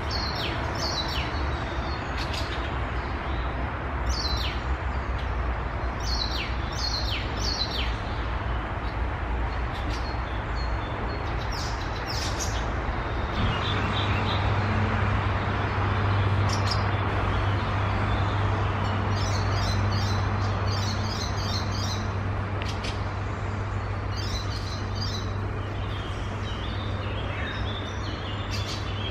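Songbirds singing: quick downward-sweeping whistled notes in the first part, then rapid chattering runs of repeated notes. A low steady hum comes in about halfway through.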